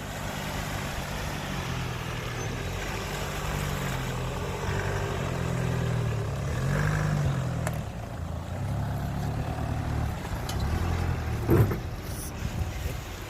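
Off-road vehicle's engine running, its pitch rising and falling as it is revved and eased off over rough track. There is a sharp knock about eleven and a half seconds in.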